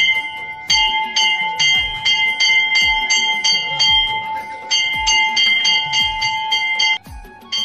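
Temple bells rung rapidly and without pause during aarti, with a low beat about once a second. The ringing breaks off briefly near the end.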